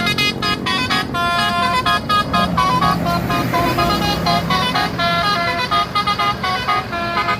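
Telolet bus horn, a multi-tone musical horn, playing a fast tune of short stepped notes without pause, over the low hum of a bus engine.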